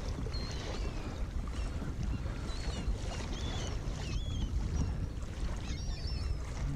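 A flock of feeding birds calling overhead, many short high calls scattered through, over a steady low rumble of wind and water splashing along a kayak's hull.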